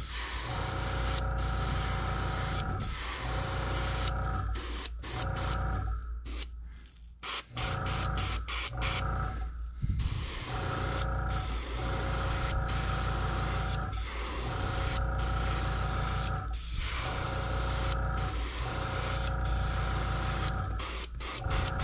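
Airbrush spraying paint onto a crankbait lure: a steady hiss of air and paint in a series of runs a few seconds long, broken by short pauses, with a low hum underneath.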